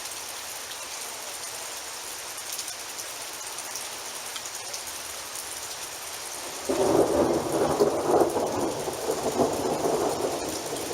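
Steady rain hiss. About two-thirds of the way in, a sudden loud thunderclap breaks into a crackling rumble of thunder that lasts a few seconds and then fades.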